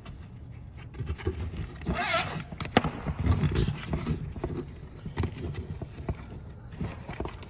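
Nylon webbing strap being pulled and worked through the slots of a metal scuba backplate: rustling and a raspy sliding sweep about two seconds in, with a few light knocks of the plate on a wooden bench.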